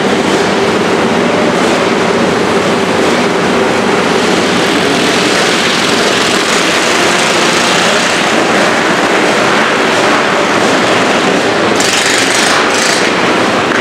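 Several mini bike engines running as the bikes race around a dirt flat track, a loud, steady mechanical din.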